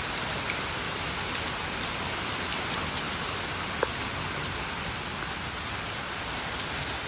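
Hail falling: a dense, steady hiss of hailstones hitting surfaces, with one sharper tick just under four seconds in.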